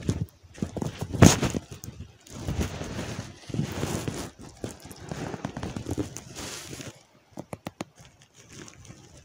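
Clear plastic bag crinkling and dry reed stalks rustling and crackling as they are handled, with a thump about a second in. A few short sharp clicks follow near the end.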